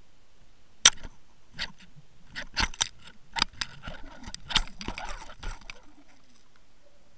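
Irregular sharp clicks and knocks, heard through an underwater camera, as a walleye strikes a trolled double hatchet worm harness. The loudest knock comes about a second in, followed by a busy run of clicks for about four seconds.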